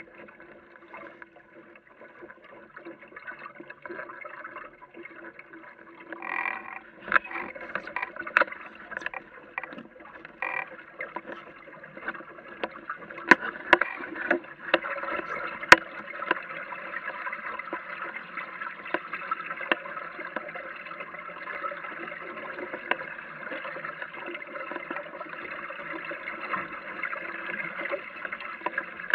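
Water rushing and slapping against the hull of a small Aquamuse sailboat under way, with sharp splashy clicks. It grows louder and busier about halfway through.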